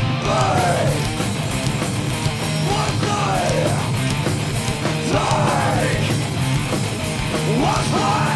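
Loud heavy, punk-style rock band playing: distorted electric guitar and drums, with a voice shouting phrases every couple of seconds.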